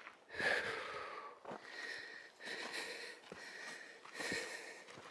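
A person breathing hard, several heavy puffing breaths about a second apart: out of breath from climbing a steep uphill trail.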